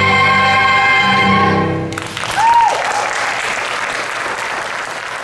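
A vocal ensemble holds the final chord of a show tune, cutting off about two seconds in, and the audience breaks into applause with a single cheer at its loudest point.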